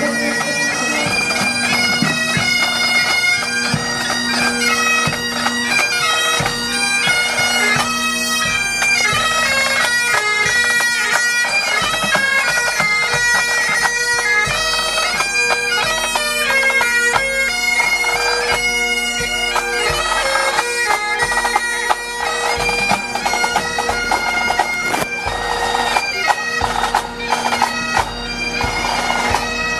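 Bagpipes playing a tune over steady, unbroken drones.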